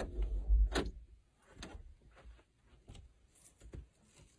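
A muffled low bump, then a few faint separate clicks and knocks as a closet door is opened and someone steps in among the hanging clothes.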